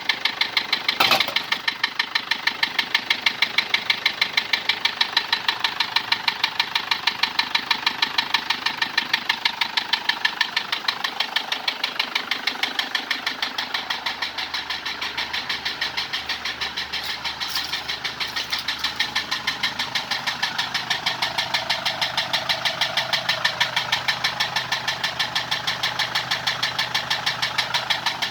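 Toyota Hilux D4D diesel engine running with a steady, rapid, even knocking. The uploader puts the knock down to the engine running dry of oil because of an oil leak.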